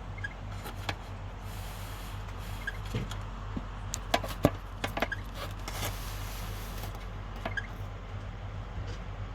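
Panasonic F-MX405-BC stand fan running with a steady motor hum, an abnormal squeak about every two and a half seconds and scattered clicks. The noise is a fault that fades for a while when the oscillating clutch knob is worked.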